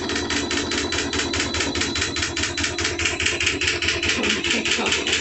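Tiny portable washing machine on its spin cycle, left unheld, rattling and knocking rapidly, about seven times a second, as the spin shakes it around in the bathtub. The suction cups do not hold it steady, so the spin is unbalanced.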